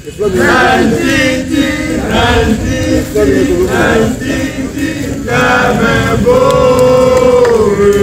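A group of voices singing a scout campfire call in short phrases, ending on a long held note about three-quarters of the way through.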